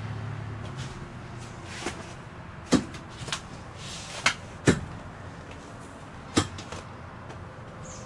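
School-bus seat belts being pulled out of their seat-back retractors and let reel back in, with about six sharp clicks and knocks of the belt hardware spread over several seconds. This is a pre-trip check that each belt retracts and locks.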